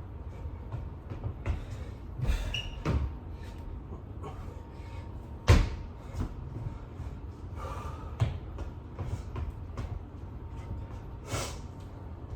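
Irregular thuds and knocks of a person doing burpees, hands and feet landing on the floor, the heaviest about five and a half seconds in, with short rushes of hard breathing between.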